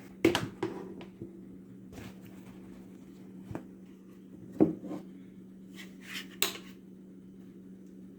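Scattered knocks and clicks of objects being handled, about seven in all and the loudest about four and a half seconds in, over a steady low hum.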